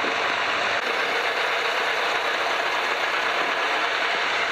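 Piper PA-12 Super Cruiser's engine and propeller running steadily on the ground, a constant rushing drone.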